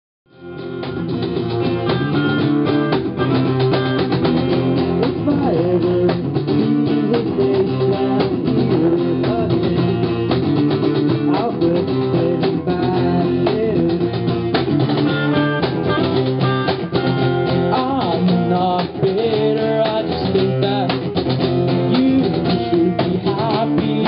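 A live band plays the instrumental intro of a pop-rock song: acoustic guitar strumming, with electric guitar and a cajon keeping the beat. The sound fades in over the first second.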